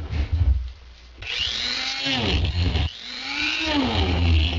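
Dremel rotary tool spinning up about a second in with a rising whine and cutting into the housing of a glow plug controller module, its pitch bending as the bit bites. It drops off briefly near three seconds, then starts again and runs steadily.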